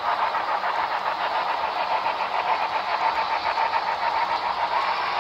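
Engine sound from an HO-scale model locomotive's DCC sound decoder, a steady, quickly pulsing chugging played through a small onboard speaker, thin and with little bass.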